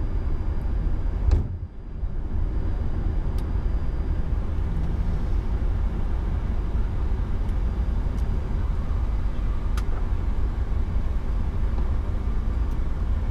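Steady low rumble on the flight deck of an Airbus A340-300 taxiing at low speed, the engines at idle. The noise dips briefly after a knock about a second and a half in, with a few faint clicks later on.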